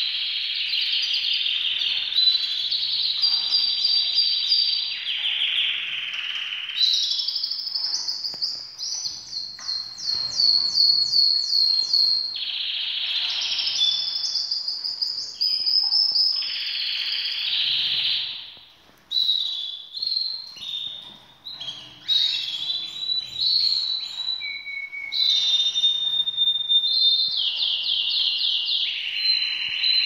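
Caged domestic canaries singing: continuous song of fast rolling trills and rapidly repeated high notes, more than one bird at times.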